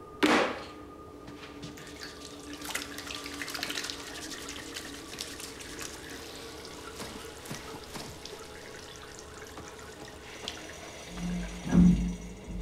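Water trickling and dripping, a crackly irregular splashing over a faint steady hum, with a loud deep boom near the end.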